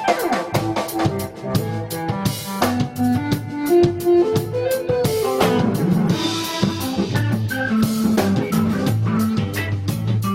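Background music with a steady drum-kit beat and a melody over it.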